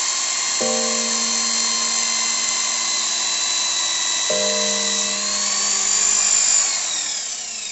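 Electric drill spinning a wooden piece against wood to make fire by friction, its motor whining steadily at high speed, then dropping in pitch as it slows near the end. Soft music chords play under it.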